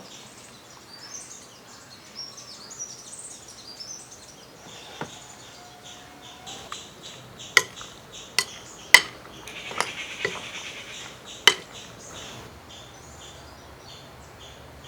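About half a dozen sharp clinks of a utensil against a dish, spread over several seconds in the middle, over faint bird chirps.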